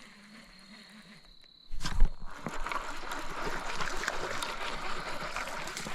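A hooked small smallmouth bass splashing at the water's surface as it is reeled in, starting suddenly about two seconds in after a quiet start, with a sharp splash at the outset and continued choppy splashing after it.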